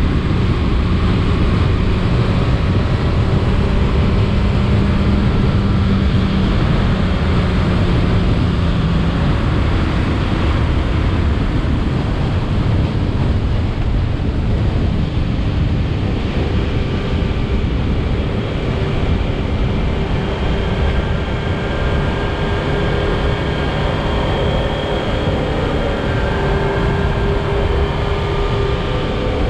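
Motorcycle under way at road speed: the engine runs steadily under a heavy rush of wind on the microphone, with a higher engine note coming through in the second half.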